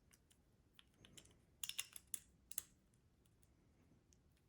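Faint clicks and taps of small metal carburetor parts being handled and fitted, a cluster of them between about one and a half and two and a half seconds in.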